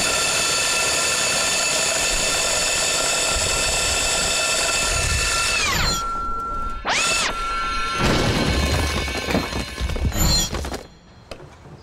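Electric core drill boring through a brick wall. Its motor whines steadily and high, winds down about six seconds in, and briefly revs up and down again. Near the end it grinds roughly as the bit breaks through the brick.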